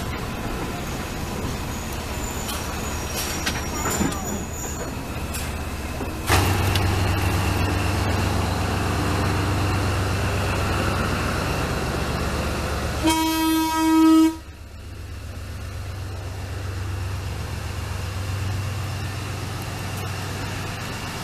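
Sri Lanka Railways Class W3 diesel locomotive running with a steady low engine drone, giving one horn blast of about a second and a half about two-thirds of the way through.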